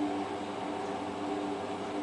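Hotpoint Ultima WT960 washing machine running, a steady motor hum with a low whine that swells and fades every half second or so.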